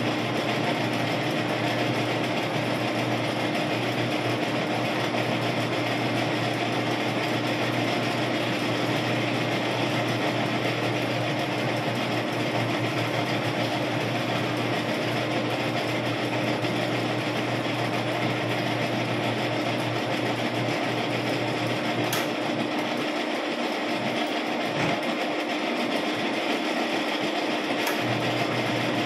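Metal lathe running steadily, its four-jaw chuck spinning: a constant machine hum with a steady tone. Two brief ticks come near the end, about six seconds apart.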